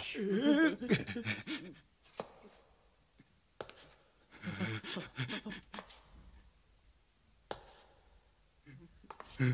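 Wordless vocal sounds: one with a wavering, wobbling pitch at the start and a lower one around the middle, with a few single sharp clicks in between.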